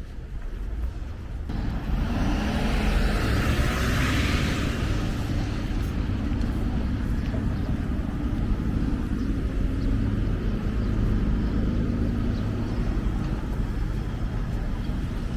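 Steady low rumble of a vehicle in motion, with a hiss that swells and fades about two to five seconds in.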